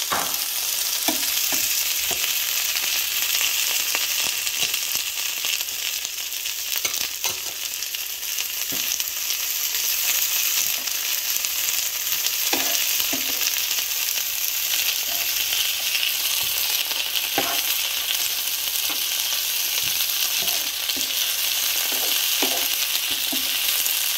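Vegetables stir-frying in olive oil in a nonstick frying pan: a steady sizzling hiss, with short knocks and scrapes here and there as a spatula turns them.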